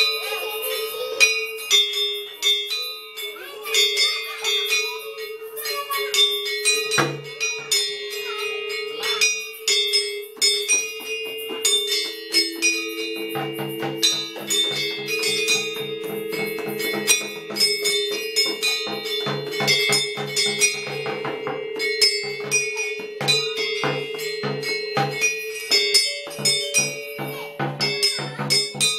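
Children striking the bars of a gamelan-style tuned percussion instrument: many ringing notes at an uneven rhythm, with deeper notes struck once about seven seconds in and again and again from about thirteen seconds on.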